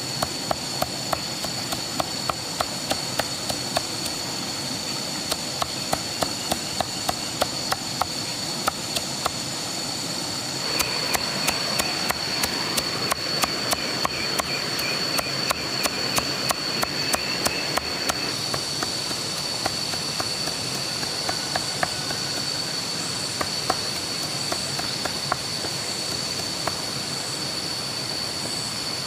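Rapid, evenly spaced chopping knocks, about two to three a second, over a steady high-pitched whine; the knocks become sparse after about eighteen seconds.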